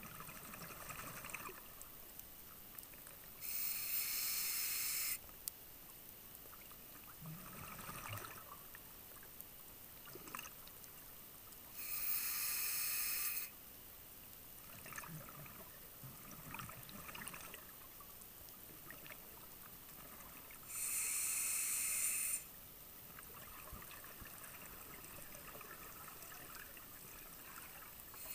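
A scuba diver's regulator during slow breathing. A steady hiss of inhalation comes three times, about every eight or nine seconds, and softer bubbling exhalations fall in between.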